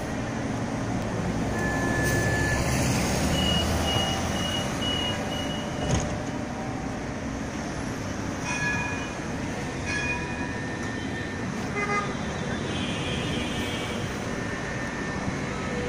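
Busy city street traffic noise, steady throughout, with several short high-pitched tones a few seconds in and again past the middle, and a few sharp clicks.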